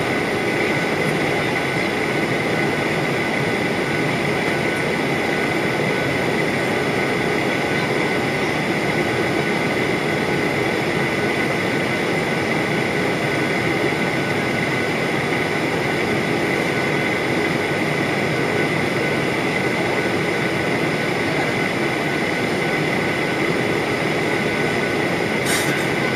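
Steady in-flight cabin noise of a Ryanair Boeing 737-800: the drone of its CFM56 turbofan engines and the rush of airflow, with a steady high whine through it. There is one short click near the end.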